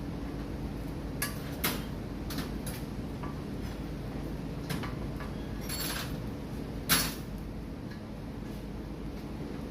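Metal clinks and knocks from hand tools and brake parts being handled while the brake caliper is fitted. About seven sharp clinks come at irregular intervals, the loudest about seven seconds in, over a steady low hum.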